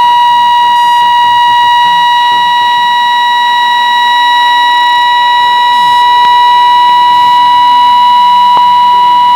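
A 1 kHz test tone from a shortwave transmission, announced at −6 dBFS, held at one steady pitch with fainter overtones above it, over a faint background hiss.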